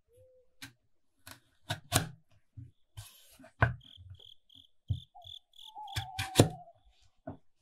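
Chef's knife cutting carrot on a wooden cutting board: irregular sharp knocks of the blade striking the board. In the middle, a cricket chirps about four times a second.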